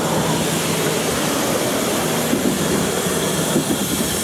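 Ivatt Class 4 2-6-0 steam locomotive No. 43106, standing in steam with a steady, loud roar of hissing steam and no exhaust beat.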